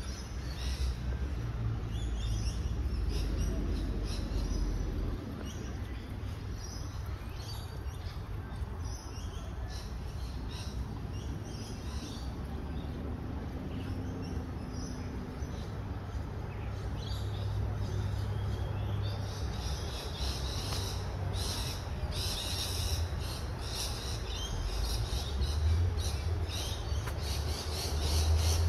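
Birds chirping and calling in short repeated notes, growing busier in the last third, over a steady low rumble.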